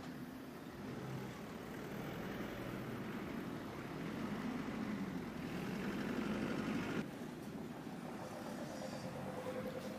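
Street traffic: car engines running and moving close by, growing louder up to about six seconds in, then dropping off suddenly at about seven seconds.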